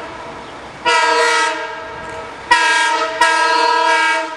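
Multi-note chime horn on an approaching LIRR C3 cab car train, sounded three times almost back to back. The first blast is about a second and a half long, a shorter one follows, then a final blast of about a second. It is the warning for the station's grade crossing, over the low rumble of the oncoming train.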